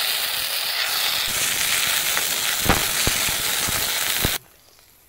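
Chakramuni (vitamin) leaves sizzling loudly in hot oil in a kadai as they are sautéed to wilt, with a few knocks of a metal spatula against the pan. The sizzle cuts off abruptly about four seconds in.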